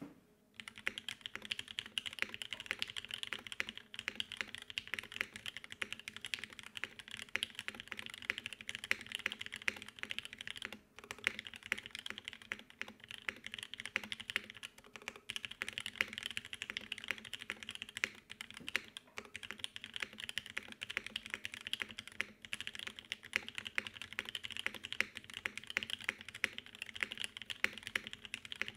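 Fast, continuous typing on a custom mechanical keyboard: a Frog TKL with lubed and filmed Gateron Mini switches (POM stems, milky housings), a full aluminum plate and CRP R4 keycaps. The key presses are dense clicks with brief pauses about 4 and 11 seconds in.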